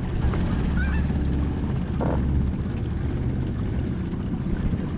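A boat motor running low and steady, with wind on the microphone. A short call cuts in about two seconds in.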